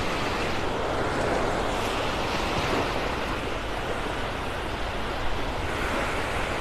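Small Gulf waves breaking and washing up a sandy beach, a steady rush of surf, with wind rumbling on the microphone.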